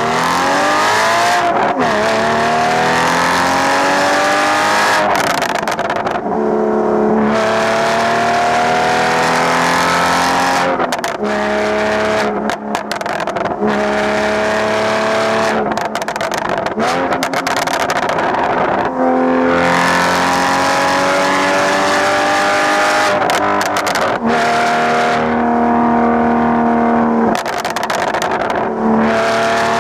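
Porsche Boxster 981's flat-six through a straight-pipe exhaust, heard close at the tailpipes, pulling through the gears of its manual gearbox: the engine note climbs and drops back at each gear change, several times over, with stretches of steady cruising between pulls.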